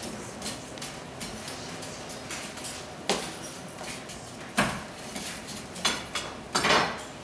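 Irregular metallic clanks and clinks of blacksmith's tools and iron stock being handled and set down, with a few louder knocks about three, four and a half, and six to seven seconds in.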